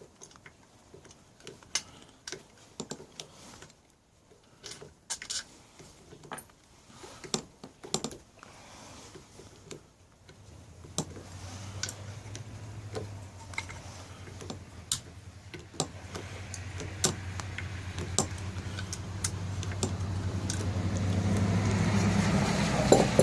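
Metal hand tools and sockets clinking and clicking irregularly while working on a small engine. In the second half a steady low motor hum, likely a vehicle engine, comes in and grows steadily louder.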